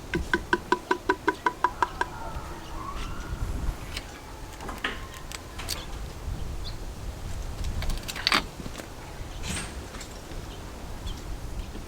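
Motor oil glugging out of a quart bottle into the engine's filler neck: a quick run of about six glugs a second whose pitch slowly rises, then the pour smooths out. A few clicks and a louder clatter about eight seconds in follow.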